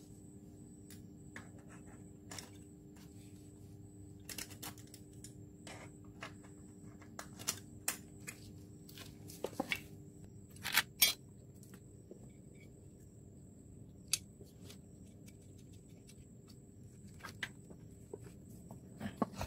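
Scattered clicks and knocks of plastic and metal chainsaw parts being handled and fitted together as the saw's handle and body are reassembled, with two louder knocks close together about eleven seconds in. A faint steady hum runs underneath.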